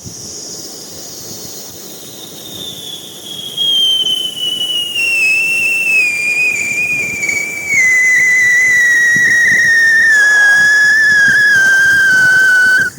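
Pyrotechnic whistle burning: a hissing start turns into one long shrill whistle that slowly falls in pitch. It grows louder in steps about four and eight seconds in, then cuts off suddenly near the end.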